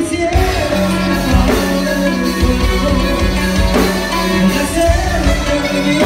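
Live norteño band with tuba, drums and guitar playing a song, a man singing lead over it, with a long held note in the middle.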